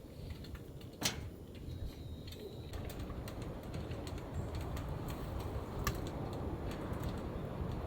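Wood stove fire crackling, with scattered sharp pops over a low rumble; a broader hiss joins a little under three seconds in.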